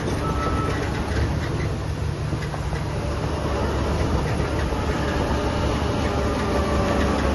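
Heavy diesel earthmoving machinery running steadily: a low engine rumble with a continuous rattle.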